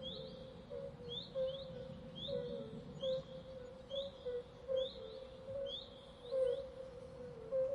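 Swamp ambience of animal calls: short, high, rising chirps repeat about once or twice a second over a string of short lower calls and a low background rumble.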